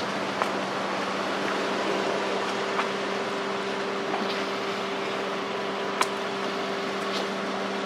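A steady hum with an even hiss, with a few short clicks, the sharpest about six seconds in.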